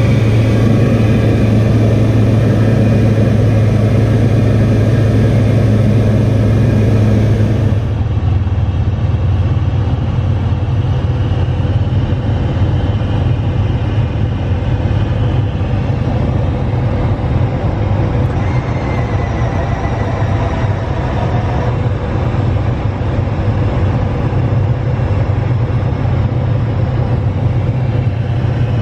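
FK14 Polaris light aircraft's engine and propeller running at a steady drone, heard on board with a strong low hum. About eight seconds in the sound turns abruptly duller and a little quieter, then carries on steadily.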